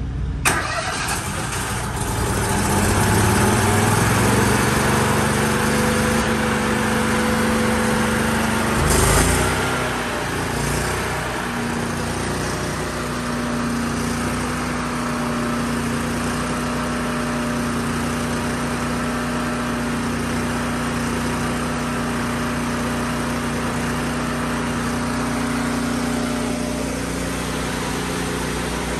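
Engine noise from a Miller Trailblazer engine-driven welder running on DC to jump-start a dead excavator, which will not start on its own batteries. The engines rise in pitch and grow loud a couple of seconds in, with a sudden loud burst about nine seconds in, then settle to a steady running hum.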